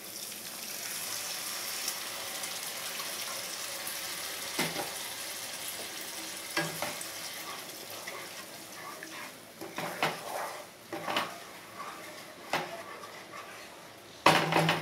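Warm water poured into a pan of hot fried masala, hissing and sizzling, then a wooden spatula stirring the gravy with short scrapes and knocks against the pan; a louder knock comes near the end.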